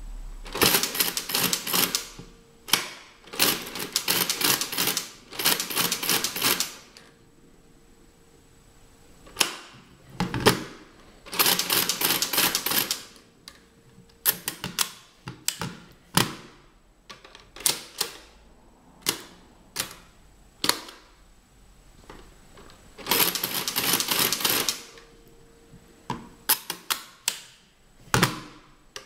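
TIM-Unitas stepped-drum mechanical calculator being hand-cranked for a multiplication by repeated addition: runs of rapid metallic clattering, each a second or so long, as the crank is turned several times in quick succession, with single sharp clacks in between.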